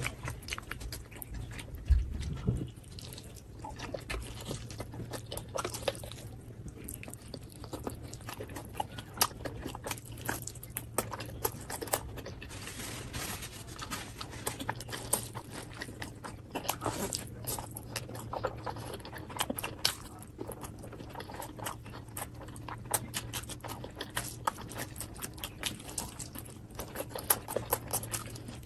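A person chewing and biting food close to the microphone, with many irregular wet mouth clicks throughout and a faint low hum underneath.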